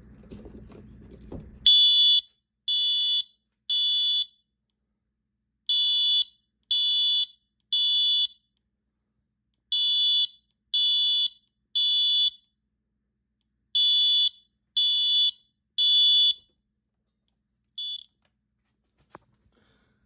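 Wheelock MT24MCW multi-tone fire alarm horn, set to code 3 tone at low volume, sounding the temporal-three pattern: four rounds of three high-pitched beeps, each round followed by a pause. A short fifth beep is cut off near the end, and a single click follows.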